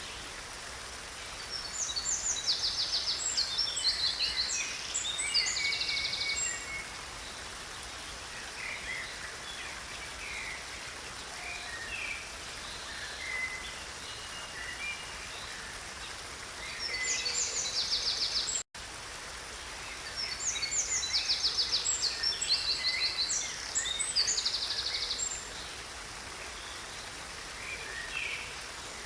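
Songbirds singing in fast, high trills over the steady rush of flowing water. About two-thirds of the way through, the sound cuts out for an instant, and then the same birdsong repeats, as in a looped recording.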